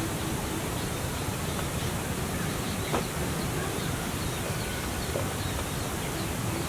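Steady outdoor background hiss with a few faint, short bird calls, one a little louder about three seconds in.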